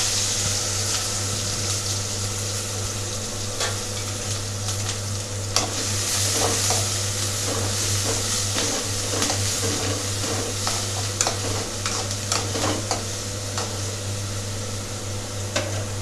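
Chopped onion frying in hot groundnut oil with mustard seeds and cumin in a kadai, a steady sizzle, with a metal spatula scraping and tapping the pan in scattered clicks as it is stirred from a few seconds in.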